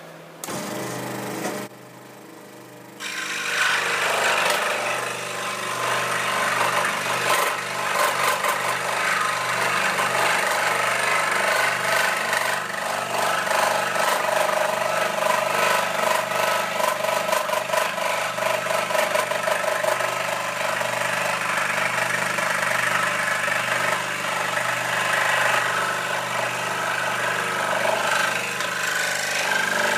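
Record Power SS16V variable-speed scroll saw cutting a circle in pine. A brief run is followed by a short pause, then from about three seconds in comes a steady, fast, rattling cutting noise as the blade saws through the wood, the saw vibrating under the load of the workpiece.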